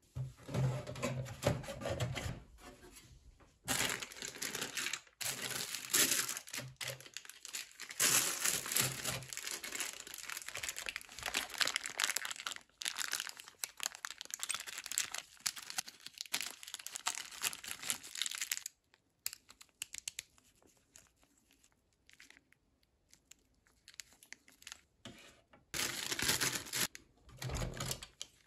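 A clear plastic zip-lock bag crinkling and rustling as it is handled, dense and continuous for the first eighteen seconds or so, then only scattered rustles and small clicks, picking up again near the end.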